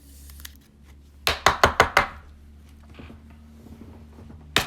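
A quick run of about six sharp taps on a hard surface, as a trading card in a plastic top loader is knocked down into the sleeve against the table; one more tap near the end.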